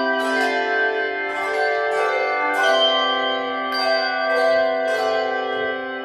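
A group playing a tune on handbells: bells struck one after another, each note ringing on and overlapping the ones before.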